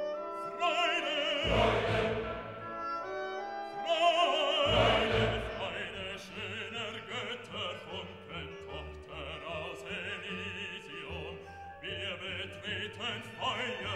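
Background classical music: a voice singing opera with strong vibrato over an orchestra, loudest in two swells in the first five seconds.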